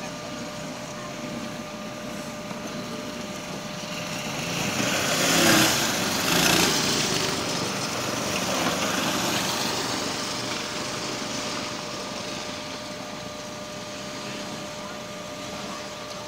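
Small high-revving racing engines passing on the track. The sound swells to its loudest about five to seven seconds in, then slowly fades.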